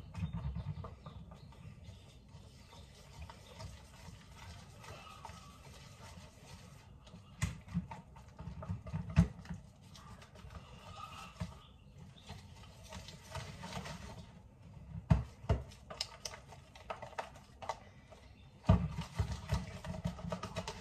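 Homemade pancake batter being stirred by hand in a bowl: uneven scraping and knocking of the utensil against the bowl, with a few sharper knocks.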